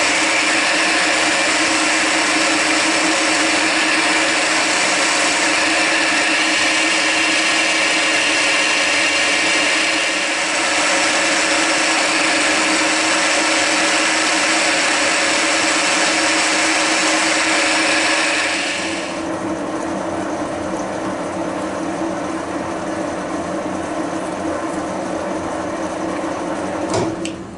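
Milling machine spindle running with a drill bit cutting into a metal block, a steady whir with a loud hissing cutting noise. A little over two-thirds of the way through the hiss drops away, leaving a quieter steady machine run.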